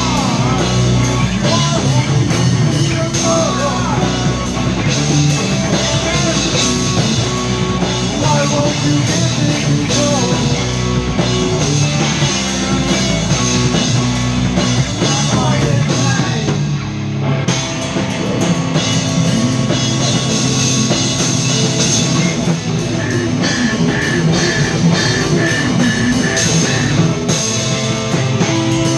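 Rock band playing live in a small rehearsal room: drum kit with cymbals, two electric guitars and electric bass, loud and continuous.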